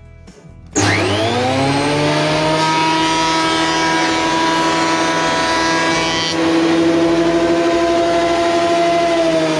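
Benchtop thickness planer switched on: the motor and cutterhead spin up with a rising whine about a second in, then run at a steady high pitch. About six seconds in its note drops slightly and it gets a little louder.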